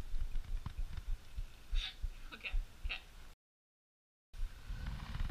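Low thumping rumble, with a few short breathy bursts of stifled laughter about two seconds in. About three and a half seconds in the sound cuts out completely for roughly a second, then the rumble returns.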